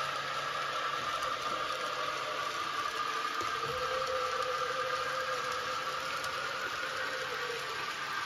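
Sound-equipped N-scale Fleischmann 150 X steam locomotive running with a train of coal hoppers: the steam sound from its decoder's small speaker, a steady hissing rush with a faint held tone, mixed with the whir of the model's wheels on the track.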